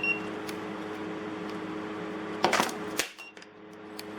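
A short electronic beep from a handheld infrared thermometer as a temperature reading is taken, over a steady low hum. About two and a half seconds in comes a brief clatter of handling clicks, followed by a second, fainter beep.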